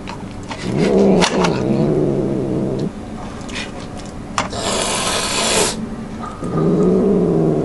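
Domestic cat growling while it eats from an opened can of food: two long, low growls of about two seconds each, the sound of a cat guarding its food. Between them come a few light clicks and about a second of hissing noise.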